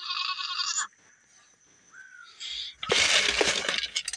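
A goat bleats once at the start, a wavering call lasting under a second. From about three seconds in comes a steady rustling of dry feed pellets being stirred or scooped in a plastic bin.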